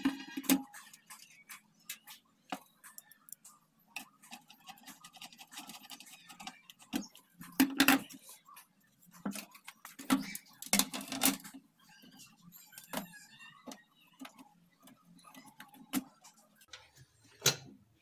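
Irregular clicks, taps and clatter of a screwdriver and the sheet-metal chassis and plastic bezel of an LCD monitor being handled and fitted together during reassembly. The loudest knocks come about eight and eleven seconds in.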